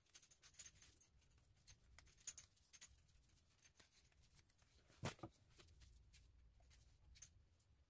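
Faint scattered clicks and rustles of stiff corn tortilla quarters being laid and shifted in a metal baking pan, with a soft bump about five seconds in.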